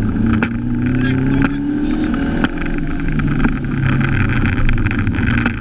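Fiat Cinquecento rally car's 1.4-litre engine pulling hard under acceleration, heard from inside the cabin. The pitch rises, drops about two and a half seconds in at a gear change, then rises again through the next gear, with scattered short clicks over it.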